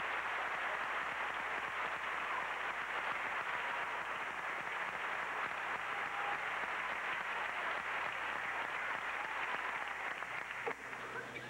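Crowd applauding steadily, easing off near the end, with a single sharp click about ten seconds in.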